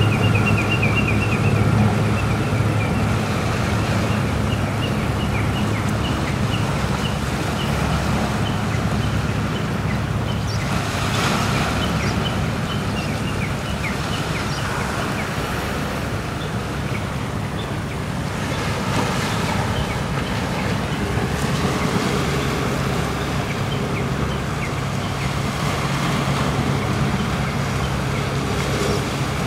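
A low steady engine drone from a passing ship, under wind on the microphone and the wash of waves, with the noise swelling twice. A faint high chirp repeats for about the first ten seconds.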